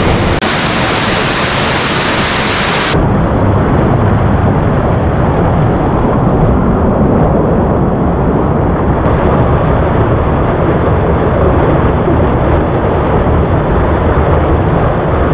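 Waterfall in heavy flow after rain: a loud, steady rush of falling water. Its high hiss drops away about three seconds in, leaving a duller, deeper rush.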